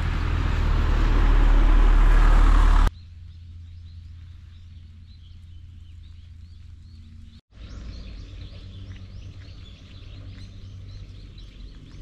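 A loud rushing noise over a low engine-like drone for about three seconds, cut off abruptly. Then small birds chirping in quick repeated calls over a steady low hum.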